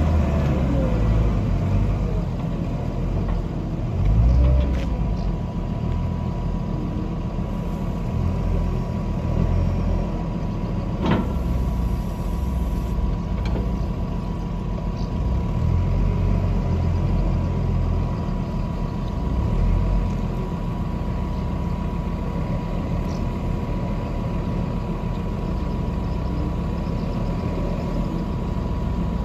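Wheel loader's diesel engine running as it grabs and lifts a large square straw bale, its low rumble swelling and easing with the work. A steady thin whine sits over it, and a single sharp knock comes about eleven seconds in.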